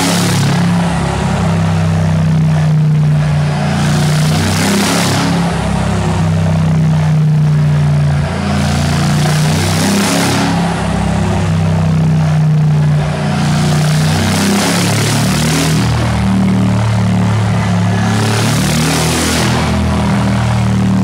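Mercedes G63 AMG's twin-turbo V8 running at steady revs through a straight-piped, decatted Akrapovic exhaust: a loud, even drone with surges of rushing noise every two to three seconds.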